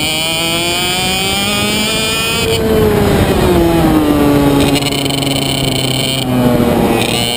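A kart's IAME Reedster KF1 125 cc two-stroke engine at racing speed, heard onboard. Its pitch climbs under full throttle, falls as the driver lifts about two and a half seconds in, climbs again out of the corner, and dips briefly near the end.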